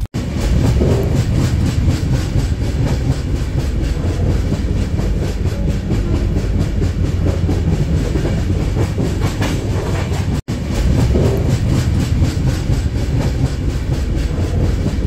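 Passenger train coach in motion: steady rumble and clatter of the wheels on the rails. It drops out for an instant about ten seconds in.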